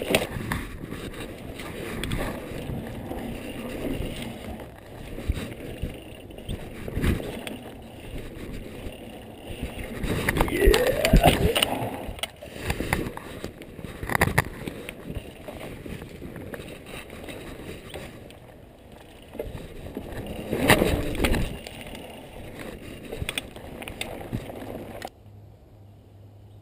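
Mountain bike riding fast over a dirt trail: tyres on packed dirt, wind rushing over the microphone, and the bike knocking and rattling over bumps, with louder swells now and then. Shortly before the end the noise cuts off to a faint, steady background.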